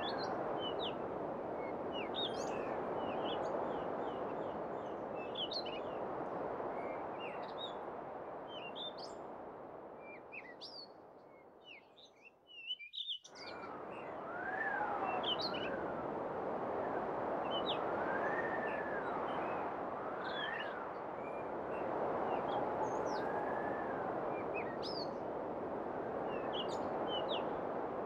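Small birds chirping with short, scattered high calls over steady wind noise. About halfway through, the wind fades and the sound drops out for a moment before both return.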